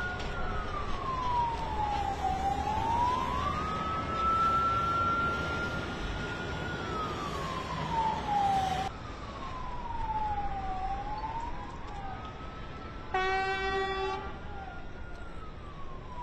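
A vehicle siren wailing, its pitch falling and rising slowly over and over, above the low rumble of heavy trucks driving past. About three-quarters of the way through, a horn sounds once for about a second.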